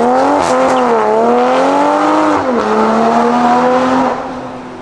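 Toyota Supra's 3.0-litre turbocharged B58 inline-six, breathing through catless downpipes and a valvetronic catback, accelerating hard away. Its pitch climbs, drops at a gear change about half a second in and again after two seconds, then holds and fades as the car pulls away.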